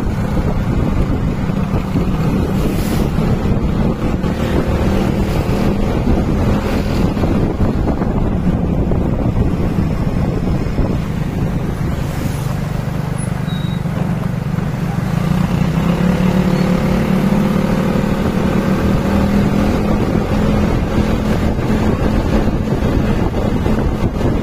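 Motorbike engine running steadily while riding along a road, with wind buffeting the microphone. The engine note rises a little about fifteen seconds in, then holds.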